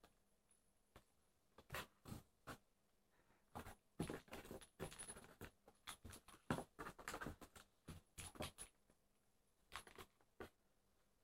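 Faint, scattered taps, scrapes and rustles on cardboard as a cat inside a box with holes in its lid bats at a furry toy on a string bouncing across the lid. The sounds come in an irregular scatter and are busiest around the middle.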